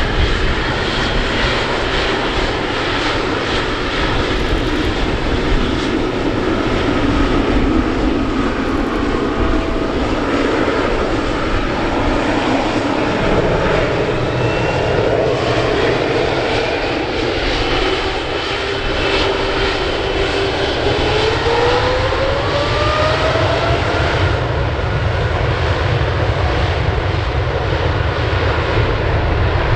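Boeing 777 Freighter's GE90 turbofan engines running loud and steady on the runway, spooling up for takeoff: a whine climbs in pitch for several seconds past the middle, then holds over the deep jet rumble.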